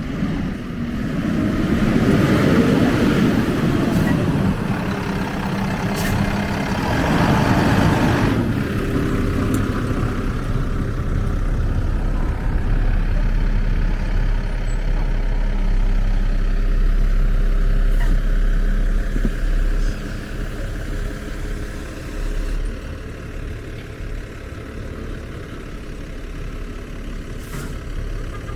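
A motor vehicle driving past through deep snow, its engine swelling loud twice in the first eight seconds. A steady low rumble follows and drops off after about twenty seconds.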